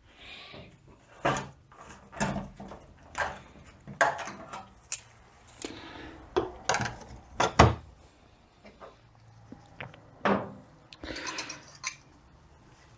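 Steel clutch plates and friction discs from a 42RE automatic transmission clutch pack clinking and knocking as they are handled and laid down, about a dozen irregular sharp metallic clicks with rustling between.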